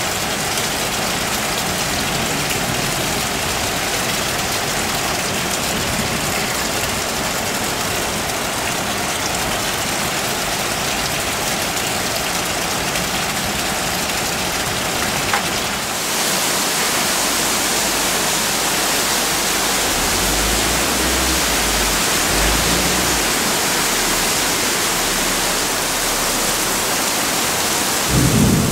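Rain falling steadily, a dense even hiss. About halfway through it grows brighter and a little louder, and a low rumble comes and goes for a few seconds later on.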